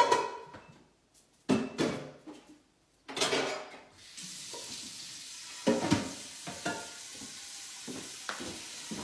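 Dishes clattering as they are handled, then a kitchen tap turned on about four seconds in and running steadily into the sink, with a dish knocking now and then as it is rinsed out.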